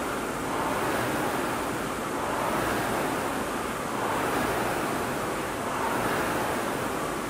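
Rowing machine whooshing with each hard pull, the rush swelling and fading about every one and a half to two seconds at a steady stroke rate.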